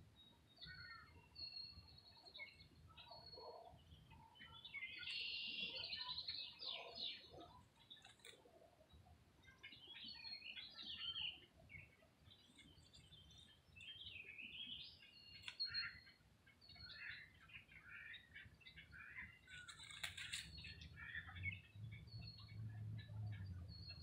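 Wild songbirds chirping and singing, a busy mix of short whistles, chirps and trills. A low rumble comes in near the end.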